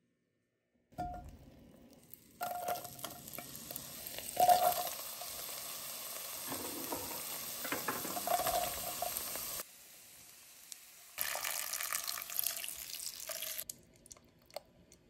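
Diced celery, onion and carrot sizzling in melted butter in an enamelled pot while a spatula stirs them. The sizzle comes in after about a second, cuts in and out in sections with a few scrapes and clatters, and drops away near the end.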